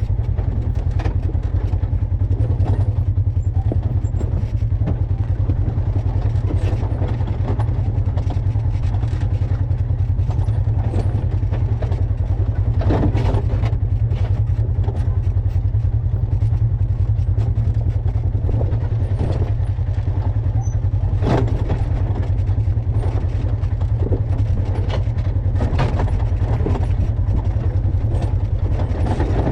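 Off-road vehicle under way, its engine running steadily beneath heavy wind rumble on the microphone. There are a couple of brief knocks from the ride, about 13 and 21 seconds in.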